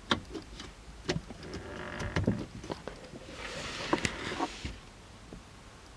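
Handling noise inside a car: scattered light clicks and knocks, with a brief faint hum and a short rustle partway through.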